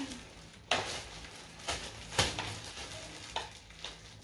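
Plastic packaging crinkling in several short, sharp bursts as it is handled and opened.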